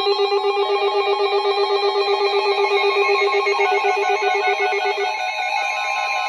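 Several NOAA weather radios sounding their alert alarms together: a loud, rapidly pulsing beep layered with other electronic alarm tones. About five seconds in, the lowest pulsing beep stops and a steady high tone near 1 kHz carries on, the NOAA Weather Radio warning alarm tone that comes before a warning message.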